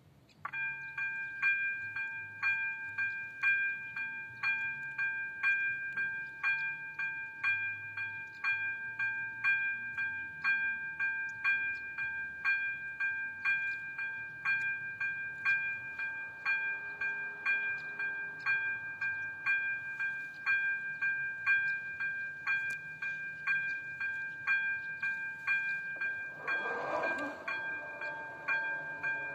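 Level-crossing electronic warning bell starting up and ringing evenly about twice a second: the crossing is signalling an approaching train. Near the end, a short burst of noise comes as the barrier arms begin to lower.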